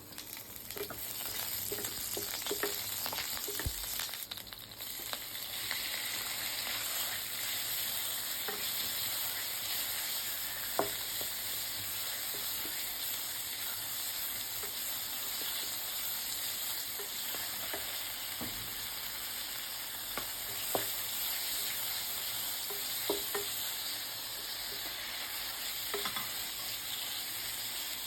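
Food stir-frying in hot oil in a pan: a steady sizzle with scattered light clicks as it is stirred.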